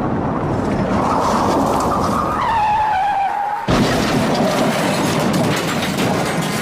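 Car tires screeching, then a sudden loud crash about three and a half seconds in, with noisy clatter carrying on after it.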